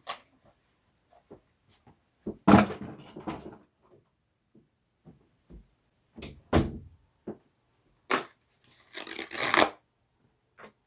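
Scattered knocks and thumps of household objects being picked up and set down while tidying a bedroom, with a loud thump about two and a half seconds in and a burst of rustling near the end.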